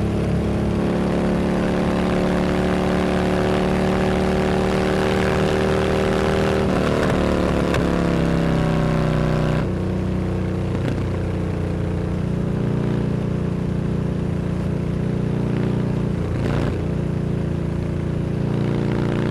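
Harley-Davidson Dyna Super Glide's V-twin engine running steadily. Its pitch shifts between about 7 and 9 seconds in, then a little before 10 seconds it drops to a quieter, duller run, with a brief blip near the end.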